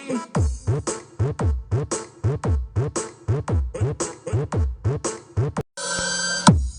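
Electronic dance music blasting through a mobile sound system with twelve subwoofers under test: a heavy kick drum, each kick a falling bass boom, about two a second. Near the end the beat cuts out briefly and a sustained synth buzz takes its place before a kick returns.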